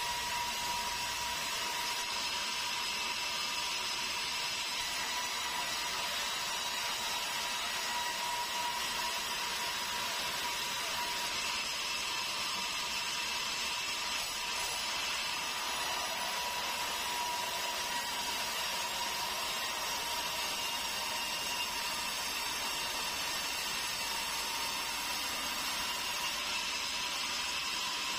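Sawmill band saw running steadily as it cuts through a meranti log, a continuous machine noise with a steady high tone over it and no pauses.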